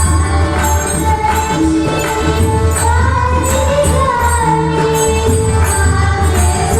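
Marathi Varkari bhajan: a woman sings a devotional melody with sliding ornaments over steady pakhawaj and tabla drumming and jingling metallic percussion.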